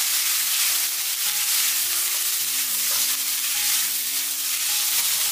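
Wood ear mushroom and carrot slices with sliced garlic sizzling in hot oil in a wok as a spatula stirs them, a steady frying hiss. Faint background music plays underneath.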